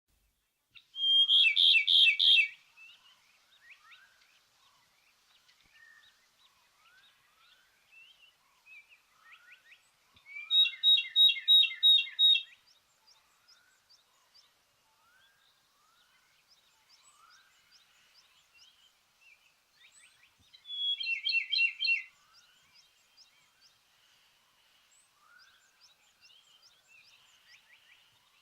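Ryukyu robin singing: three loud phrases about ten seconds apart, each a rapid run of repeated clear notes lasting about two seconds. Faint short chirps of other birds sound in between.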